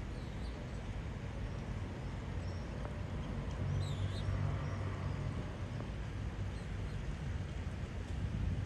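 Outdoor harbour ambience: a steady low rumble and hiss that swells briefly about four seconds in, with a few faint high bird chirps.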